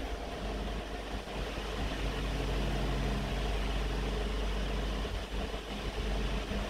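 Steady hum of a running motor, with a constant low drone and no change in pitch.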